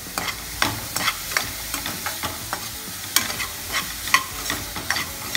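Steel spoon stirring diced potato and cabbage frying in a kadai: repeated clicks and scrapes of the spoon against the pan over a light sizzle.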